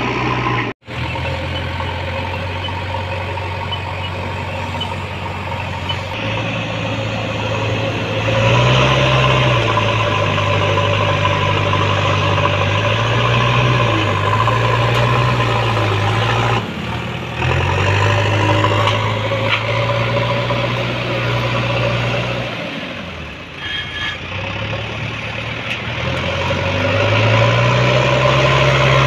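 Heavy diesel engines of a JCB 3DX backhoe loader and an Eicher tipper truck working, the revs rising and falling several times under load. Near the end the tipper's engine is revved to raise its body and dump the earth.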